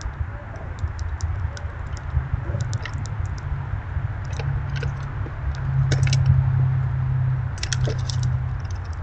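Black squirrels foraging in crusty snow among spilled birdseed: scattered sharp ticks and crackles in small clusters, over a steady low rumble.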